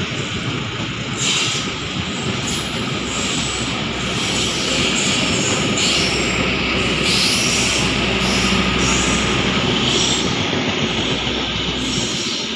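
Train passing close by: a steady rumble and clatter of railway cars rolling on the rails, with brief high screeches now and then.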